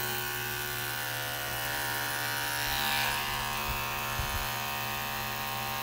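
Cordless HOLODOG pet paw trimmer running with a steady electric buzzing hum.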